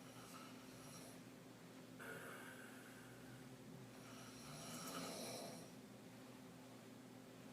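A sleeping woman snoring faintly, three snoring breaths with the loudest about five seconds in.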